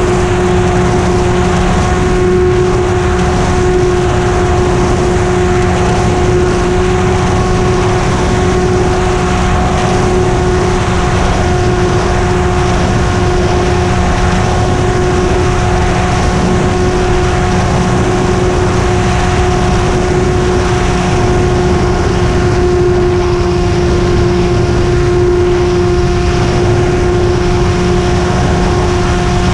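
Model airplane's engine and propeller running at a steady, unchanging pitch, heard close up from a camera mounted on the plane in flight, with air rushing over the microphone.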